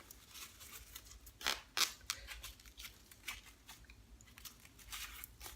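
Rustling and crinkling of a hair wrap being wrapped around the head over gelled hair, in irregular small scrapes, with two louder strokes about a second and a half in.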